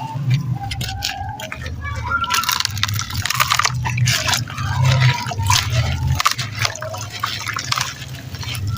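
Lumps of sand-and-cement crumbling and dropping into a lot of water, with repeated splashes and drips, over a steady low hum.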